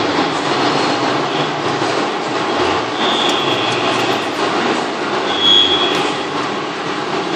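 Romi Centur 30D CNC lathe machining a part: a steady, loud noisy wash of spindle and cutting, with short high squeals three times.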